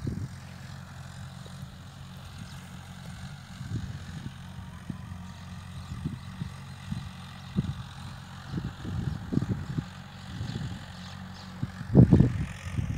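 Tractor engine running steadily while pulling a harrow through a field, with irregular low thumps, the loudest near the end.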